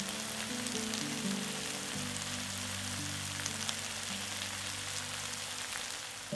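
Diced tomatoes and bell peppers sizzling steadily in a frying pan, with a few faint clicks of a spoon as tomato paste goes in. Background music plays under it.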